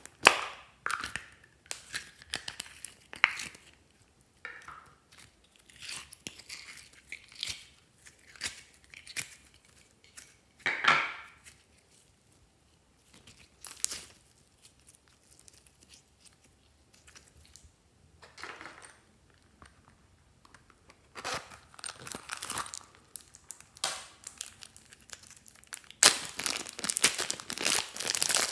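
Sticky glitter slime handled by hand: pulled from a plastic container and stretched, in scattered short bursts of sticky tearing and clicking. Near the end a plastic zip bag crinkles steadily as slime is worked inside it.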